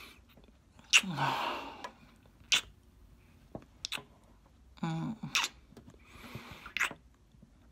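Exaggerated wet kissing: about five sharp lip smacks roughly every second and a half, with heavy breathing and two short low moans, the first and loudest about a second in.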